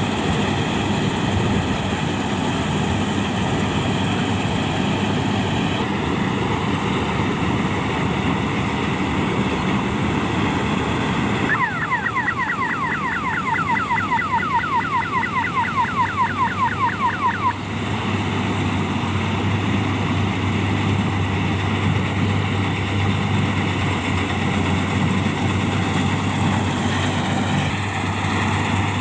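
Heavy farm machinery engine running steadily. About twelve seconds in, an electronic siren-type horn sounds for about six seconds as a rapid series of falling whoops, about five a second.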